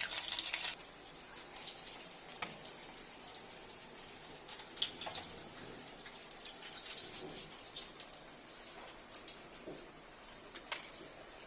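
Breaded potato cheese balls deep-frying in hot oil: a steady sizzle with scattered small crackles and pops, louder in the first second.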